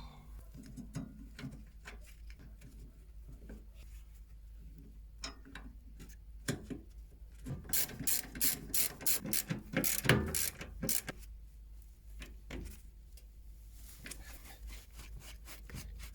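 Hand ratchet wrench clicking in quick runs as it turns screws. The loudest run of rapid clicks comes around the middle, peaking in a sharp hit about ten seconds in, with a fainter run near the end.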